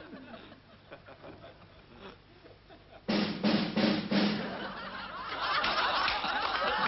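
Music with drums, snare hits and a drum roll, starting suddenly about three seconds in after a quieter stretch.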